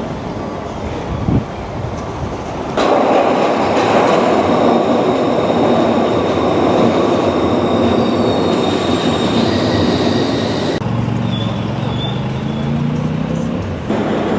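Passenger train running on the rails, heard from on board, in several spliced-together clips that switch abruptly. In the long middle stretch a thin high tone rides over the rumble, and near the end a low hum rises slightly in pitch.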